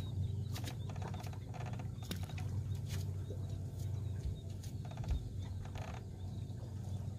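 Fishing reels clicking and rattling as baits are let down toward the bottom, a few light clicks scattered through, over a low steady hum.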